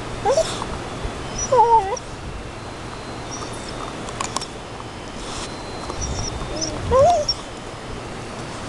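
A dog whines three times in short, wavering whines while gnawing a root, with a few sharp cracks of chewing in the middle.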